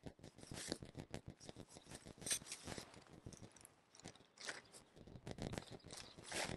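Faint rustling and crinkling of nylon tent fabric and its carry bag as a folded instant dome tent is pulled out and spread open, with scattered small clicks and short swishes.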